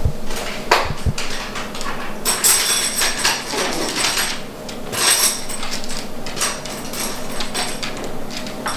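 Toy poodle puppies scuffling as they play-fight, their claws clicking and scrabbling on the hard floor and rug in a quick, uneven run of ticks and scrapes, with bursts of louder scratching.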